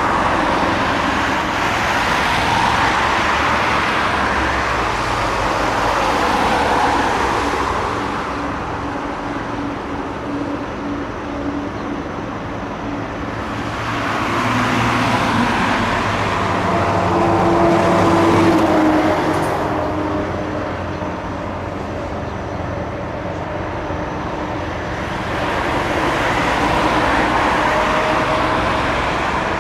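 Airbus A300 freighter taxiing, its twin turbofan engines running at low taxi power: a steady rushing hum that swells and fades a few times, with a faint engine whine coming through about halfway.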